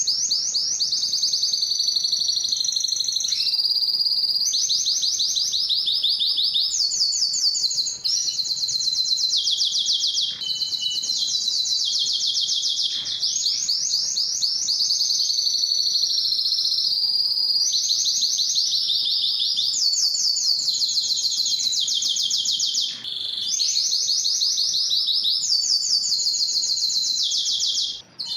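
Spanish timbrado canary singing a continuous high-pitched song of rapid trills and rolls, switching to a new phrase every second or two with only brief breaks.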